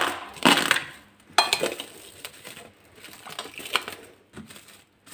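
Cling film crinkling as it is laid over a jar of salted lemons, with several sharp clinks and knocks from the jar, one ringing briefly.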